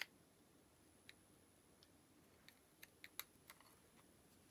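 Faint, irregular small clicks of a Sony Walkman MP3 player's plastic case being pried apart at its clips, about eight in all, with a cluster around three seconds in.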